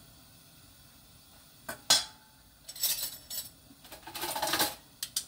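Kitchenware being handled off to the side of the pan: two sharp knocks about two seconds in, then several short clattering and scraping noises and a couple of clicks near the end.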